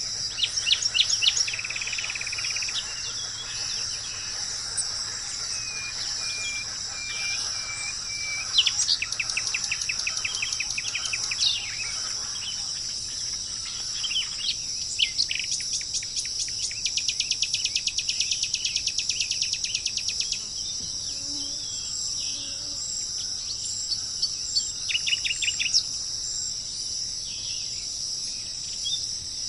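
Birds calling over a steady, high insect drone. Several fast chattering trills come in bursts, and a short run of four even whistled notes comes about six seconds in.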